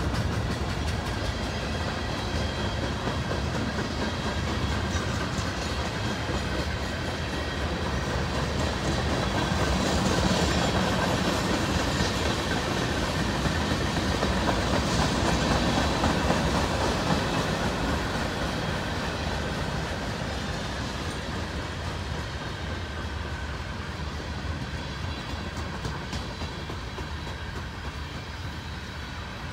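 Freight train's cars rolling past, their steel wheels rumbling and clicking steadily on the rails. The sound swells about ten seconds in and eases off toward the end.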